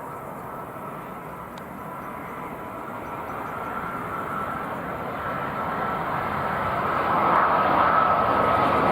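Airbus A330-300 airliner on landing approach: jet engine noise with a steady high whine, growing louder as the aircraft comes closer, loudest near the end.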